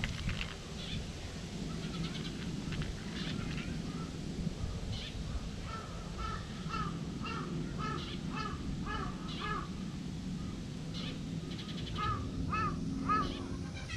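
A crow cawing: a quick run of about ten caws beginning about halfway in, then a few more near the end, over steady low background noise.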